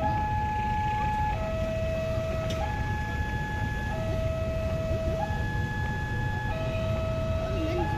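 Level-crossing warning alarm sounding a steady two-tone high-low signal, each tone held a little over a second, warning that a train is approaching. A low rumble runs underneath.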